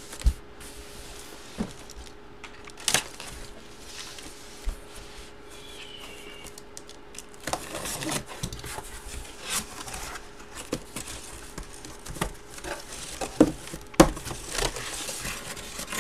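A cardboard box being handled and opened by hand: scattered knocks and taps, with rustling and scraping of cardboard, busiest in the second half.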